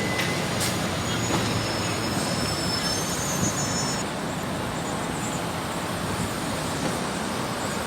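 New York City subway train running, a steady rumble and rattle of the car, with thin high wheel squeal for a couple of seconds near the start.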